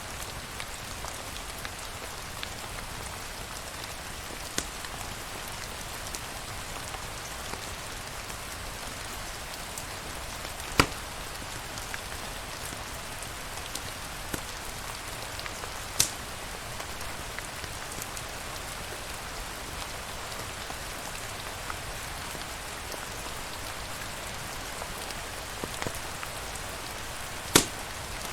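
Steady rain falling, an even hiss, with a few sharp pops or clicks standing out above it, the loudest about a third of the way in, just past halfway and near the end.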